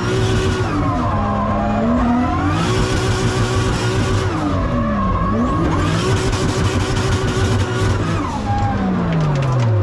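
Toyota Supra Mk4's 2JZ-GTE straight-six heard from inside the cabin while drifting: the revs swing up and down three times and then fall away steadily near the end, with tyres skidding.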